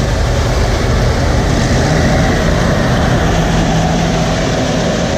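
Combine harvester running hard with a loud, steady engine and machinery drone; the operator takes the sound for a clutch about ready to let loose.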